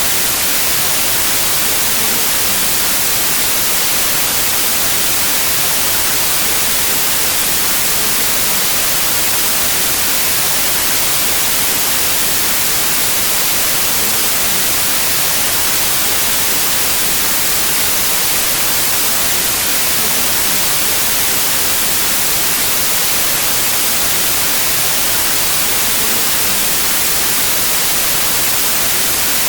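Synthetic white noise: a loud, perfectly steady hiss like television static, with nothing else in it.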